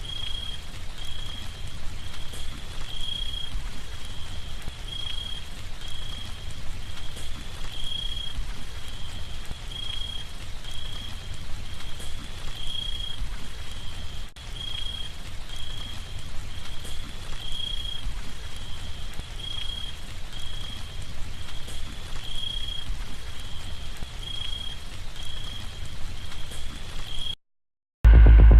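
Steady rain falling in a tropical rainforest, with a high-pitched animal call repeating a little more than once a second over it. The sound cuts off suddenly near the end.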